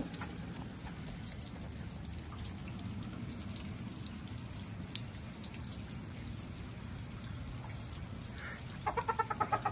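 Steady rain falling, with single drops ticking close to the microphone. Near the end comes a short run of rapid, pitched calls, about seven a second.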